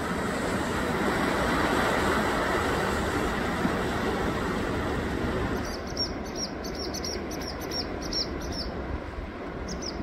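Sea waves washing onto a rocky shore, a broad steady rush that swells and then eases. From about six seconds in, a small bird calls a quick series of short high chirps, with two more near the end.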